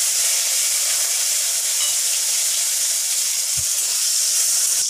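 Chopped tomatoes sizzling in hot oil in a kadai, a loud steady hiss that starts as they hit the oil. One soft low bump about three and a half seconds in.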